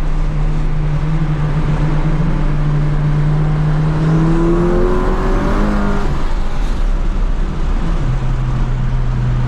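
Car engine running under way, heard from inside the cabin of a gutted big-turbo VW MK7 GTI with road noise. It drones steadily, rises in pitch as it accelerates about halfway through, then settles to a lower drone about eight seconds in.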